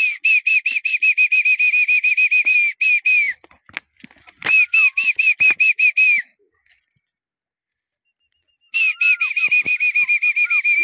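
A bird calling close by in fast runs of shrill, even whistled notes, about seven a second, each note dipping at its end. There are three runs, broken by pauses, with a few sharp clicks between them.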